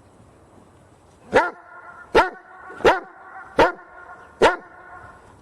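A dog barking five times at an even pace, one bark about every three-quarters of a second.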